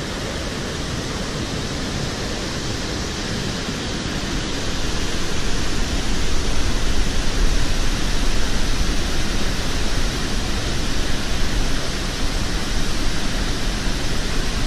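Steady rushing noise of a tall waterfall pouring into a rocky pool, growing louder about five seconds in.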